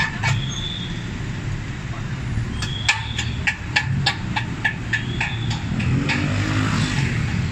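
Busy street traffic: the engines of passing cars, motorbikes and tuk-tuks running, with many sharp clicks and knocks and a few brief high-pitched squeals. One engine note rises near the end.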